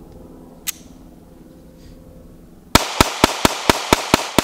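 Sig Sauer P365XL 9mm pistol fired in a rapid string: about eight shots at roughly four a second, starting a little past halfway. A single sharp click comes earlier.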